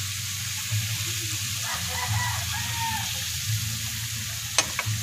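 Banana cue frying in hot oil and caramelizing sugar in a wok: a steady sizzle, with two sharp clicks of the metal spatula against the pan near the end.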